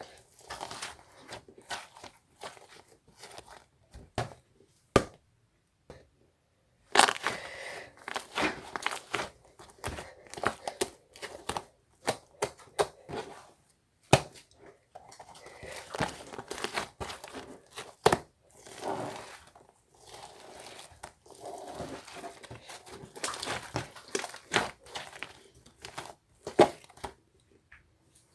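Hands squeezing and stretching slime, giving irregular crackling, popping and squishing sounds, with a short pause about six seconds in.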